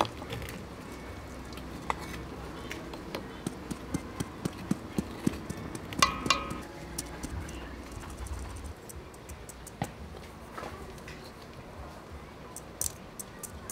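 Mesh flour sieve tapped by hand over a metal bowl as flour is sifted: a run of light, fairly even taps, with a louder knock that rings briefly about six seconds in, then scattered lighter taps.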